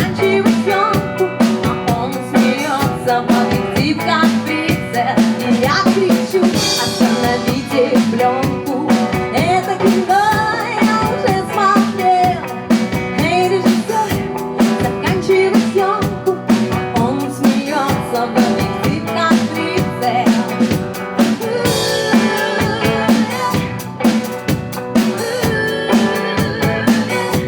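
Band music with a drum kit keeping a steady beat under pitched instruments.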